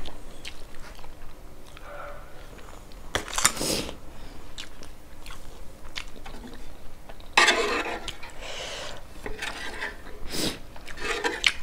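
A person eating Shin Ramyun noodles in spicy broth close to a clip-on mic: chewing, with several loud, noisy slurps, the longest about two-thirds of the way through.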